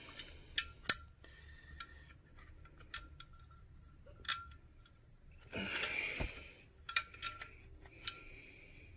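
Small sharp clicks and ticks, with one longer scraping rasp about six seconds in, as hands pick at the old glue and cone remnants inside the stripped frame of a Sundown ZV5 subwoofer.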